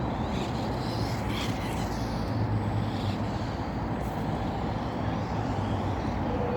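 Electric motors of a Lego Technic RC buggy running as it drives, with a faint high whine rising and falling over a steady rushing noise.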